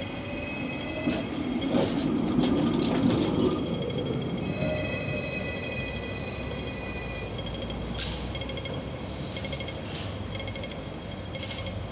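Hong Kong double-decker electric tram running past on street rails, its wheels rumbling loudest in the first few seconds and knocking sharply over the rail joints and points several times, with a thin high whine from the running gear.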